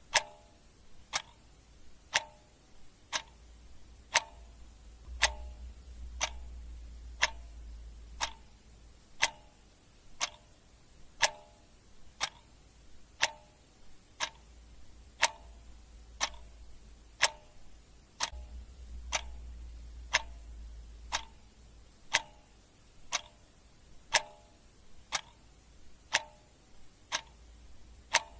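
Clock ticking steadily, one tick a second, with a faint low rumble coming and going underneath.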